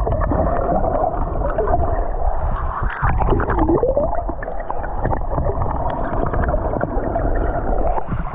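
Muffled sound recorded with the camera under water: a steady low rumble with gurgling, and wavering tones that bend up and down.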